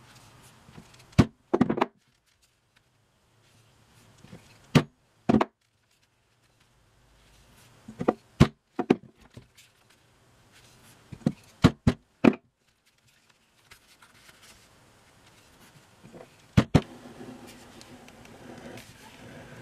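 A dozen or so sharp taps and clicks, singly and in quick pairs and threes, from a steel scribing tool worked over chrome-tanned leather on a stone worktop, with faint scratching between them.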